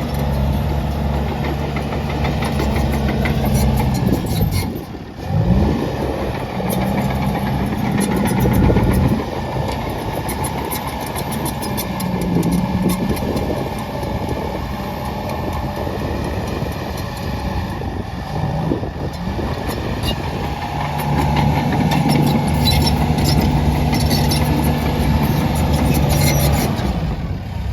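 Case/New Holland D95B crawler dozer's diesel engine working under changing load as the dozer pushes dirt, its note dipping sharply about five seconds in, then rising and falling. Short knocks and rattles from the machine run through the engine sound.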